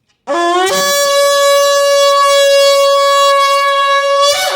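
Kudu-horn shofar blown as one long held note. It slides up into pitch at the start, holds steady and bright for about three and a half seconds, and breaks briefly upward just before it ends.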